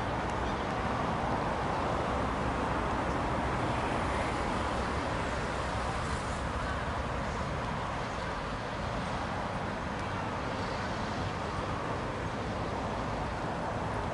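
Steady rumble and hiss of distant road traffic, unbroken and without any distinct events.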